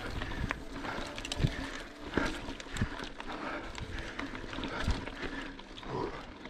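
Mountain bike riding over a bumpy dirt trail: continuous tyre and trail noise with irregular knocks and rattles from the bike over bumps, the loudest about a second and a half in.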